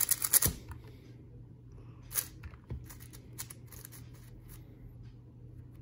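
Plastic layers of a YJ MGC 5x5 speed cube being turned by hand: a fast run of clacking turns at the start, then single clicks and slower turns. The new cube is stiff and too hard to turn fast.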